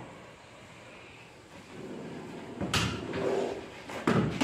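A stick knocking and scraping against a wooden frame leaning on a wall: a sudden knock with a rough scrape after it about three seconds in, and another sharp knock near the end.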